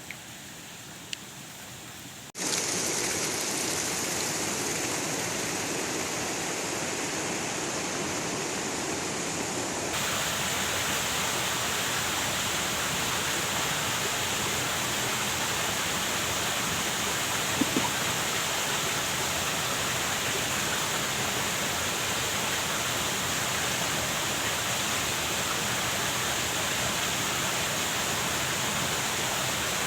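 Steady rushing water, an even hiss with no distinct tones. It starts abruptly a couple of seconds in and shifts in character about ten seconds in, like a cut between water shots.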